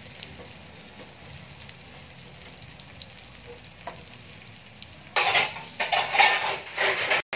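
Masala-coated parwal (pointed gourd) pieces frying in hot oil in a pan, sizzling while a spatula turns them over. The sizzle is faint at first, then about five seconds in it gets much louder and comes in several surges.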